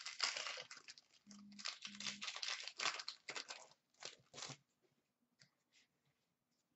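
A hockey card pack's wrapper being torn open and crinkled by hand, in crackling stretches through the first half and two short rustles about four seconds in.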